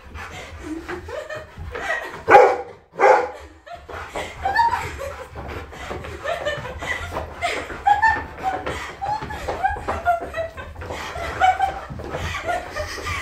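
People laughing and giggling in short bursts throughout, as a rottweiler chases a woman around a room. There are two loud, sharp outbursts about two and three seconds in.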